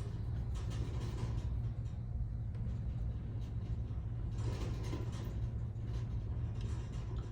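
Steady low electrical hum from workbench equipment, with faint brief scratches on top, typical of a swab cleaning the board.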